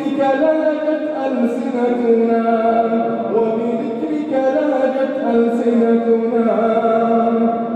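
A man's voice chanting an Arabic supplication in a melodic, drawn-out style, holding long notes that glide slowly between pitches.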